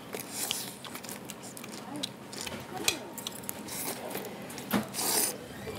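Jjajangmyeon noodles being slurped and chewed, with short hissy slurps, the longest about five seconds in, and sharp clicks of metal chopsticks.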